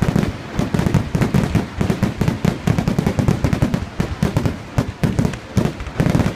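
Fireworks display: a dense, unbroken barrage of rapid bangs, several a second, from bursting aerial shells.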